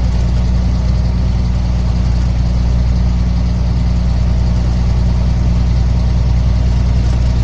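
Truck engine running steadily at highway cruising speed, a constant low drone mixed with tyre and road noise, heard from inside the cab.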